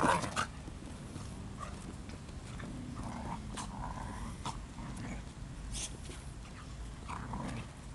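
Two dogs play-fighting, snarling and growling, loudest in a short burst right at the start and then quieter.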